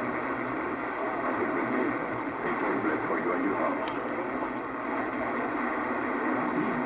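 CB radio receiver hiss, steady and squeezed into the narrow band of a radio speaker, with weak, garbled voices of distant stations faintly under it between clear transmissions.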